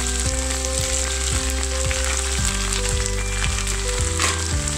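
Oil sizzling steadily in a frying pan of corn kernels, diced mortadella and scrambled egg, with background music underneath.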